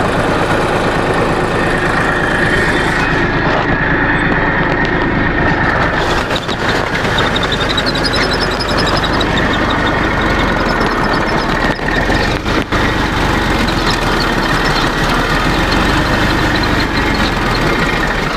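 Tractor engine running steadily, with a rapid mechanical knocking that the owner puts down to the universal-joint cross, typical of a worn U-joint.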